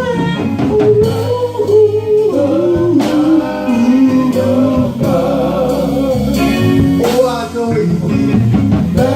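Gospel music: a band with guitar, bass and drums playing under a voice singing long, gliding notes.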